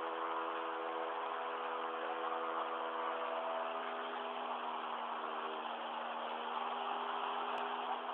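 Light aircraft's piston engine and propeller running steadily in cruise, heard from inside the cabin as an even drone. There is a single short click near the end.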